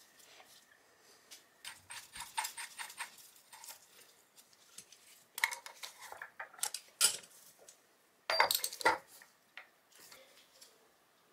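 Steel parts of a crawler tractor's PTO gearbox clinking and tapping as they are handled and fitted by hand: a gear, circlip pliers and a fitting sleeve against the shaft and casing. The clinks come in three clusters, the loudest near the end.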